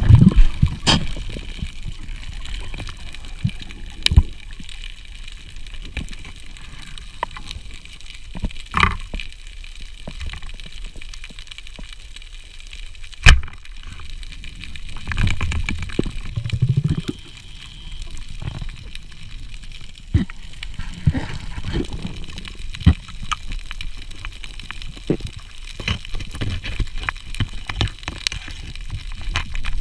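Underwater sound picked up by a diver's camera: a muffled wash of water with scattered clicks and knocks. The loudest is one sharp knock about thirteen seconds in, and there are low muffled swells a couple of seconds after it.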